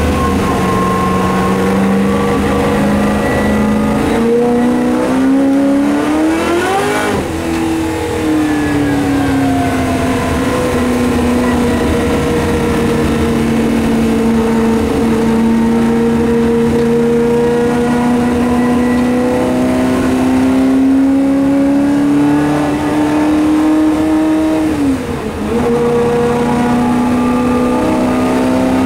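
Shelby Mustang GT350R's 289 V8 racing engine heard from inside the cockpit under hard running. The engine note rises sharply and falls away about 4 to 8 s in, climbs slowly for a long stretch, then drops abruptly with a brief dip in loudness about 25 s in at a gear change before rising again.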